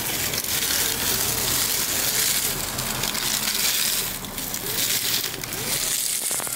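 Traxxas TRX-4 Sport 1/10-scale RC crawler driving through dry leaves and brush: its tyres crunch through the litter while the electric motor and gears whine, rising and falling with the throttle. A sharp knock near the end.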